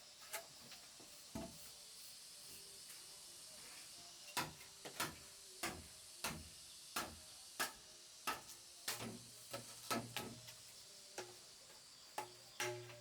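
A hand tool striking wood again and again: sharp knocks, about one every half second to second, most regular through the middle stretch. A steady faint high hiss sits behind them.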